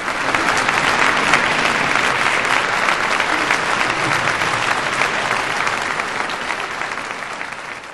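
Applause from many people clapping, starting suddenly, holding steady, then fading away near the end.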